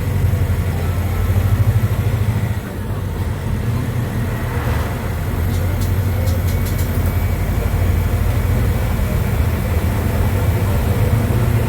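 MAN D0834 four-cylinder inline diesel of a Volkswagen 17-230 OD bus running steadily under way. The level dips briefly about two and a half seconds in, then picks up again. A few faint clicks come partway through.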